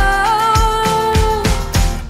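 Background pop song: a singer holds one long note over a steady drum beat.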